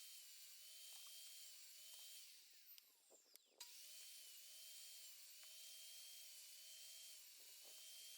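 Small power-tool motor running with a steady, slightly wavering whine. About two and a half seconds in it winds down with a falling pitch, then starts up again abruptly a second later and runs on.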